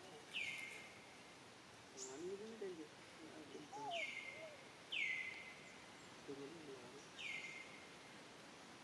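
A bird calls four times, each a short whistle that drops in pitch and levels off. Fainter wavering lower sounds come in between.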